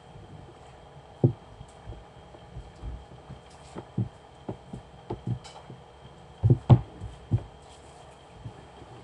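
Irregular dull thumps of hands pressing and slapping dough on a floured table, the loudest few a little past halfway.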